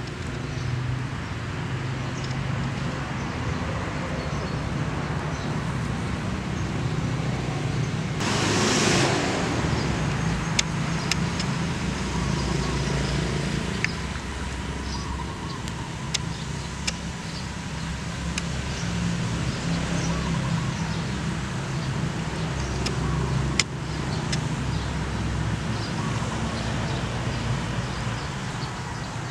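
Stuffed snails grilling in their shells on a grate over the fire: the filling bubbles and sizzles, with a few sharp single pops scattered through. A steady low rumble runs underneath, and a brief louder rush of noise comes about eight seconds in.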